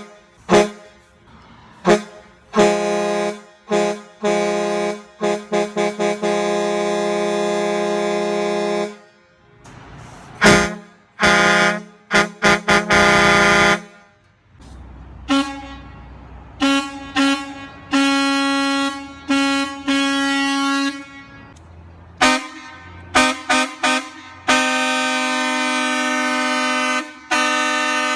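Truck air horns sounding a chord of several steady tones, blown in a string of short honks and several longer held blasts of two to three seconds. The pitch is higher in the second half.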